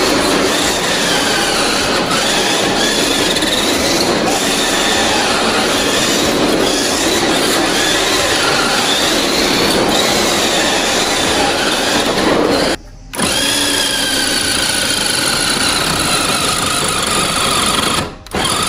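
Toy-grade 1/8-scale electric RC rally car driving fast on a marble floor: its motor and gears whine, the pitch rising and falling with the throttle. The sound drops out briefly about thirteen seconds in and again near the end.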